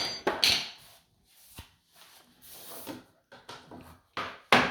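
Scattered knocks and clatter of wooden boards being handled and set down on the floor, in an empty, echoing room: a few sharp knocks at the start and a louder pair near the end.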